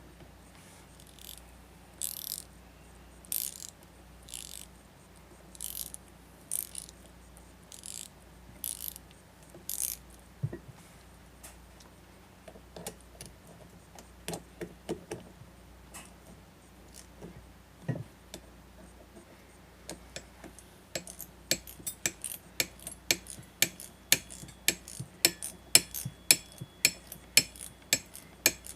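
Hand-tool work on an ATV axle assembly. First come short hissing strokes about once a second for the first ten seconds, then scattered light clicks and knocks. From about two-thirds of the way in, quick sharp metallic clicks run about three times a second, louder than the rest.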